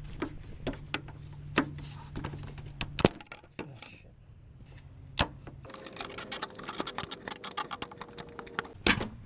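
Plastic power steering fluid reservoir being handled and worked loose from its mount: scattered sharp clicks and knocks, then a fast run of clicking and rattling near the end, with one loud knock just before it ends. A steady low hum stops about three seconds in.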